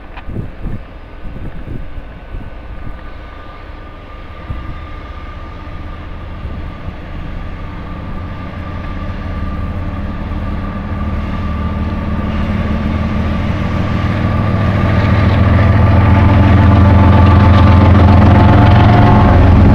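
Norfolk Southern diesel locomotive engine drone growing steadily louder as the locomotive approaches, loudest in the last few seconds.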